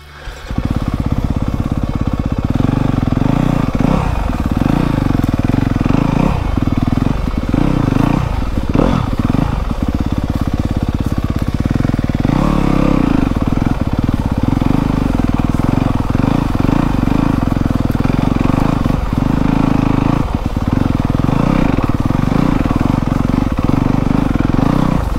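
Single-cylinder four-stroke engine of a 2024 Yamaha YZ250FX dirt bike running under load as it is ridden over soft, uneven ground, the note dipping briefly several times as the throttle is chopped and reopened.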